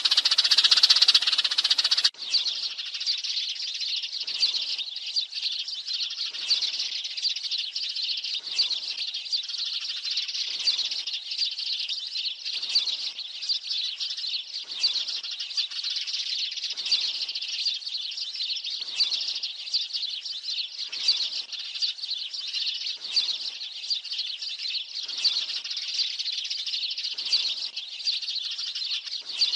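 A flock of sparrows chirping densely and without pause: a recorded flock-calling lure used to draw sparrows to a trap. About two seconds in, the recording changes abruptly to a slightly quieter stretch, in which a faint sweep repeats about every two seconds.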